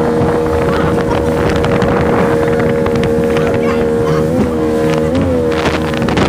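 Motorboat engine running steadily at speed over a constant rush of wind and water. Its pitch briefly jumps up twice in the second half, as the revs change while the boat moves over the water.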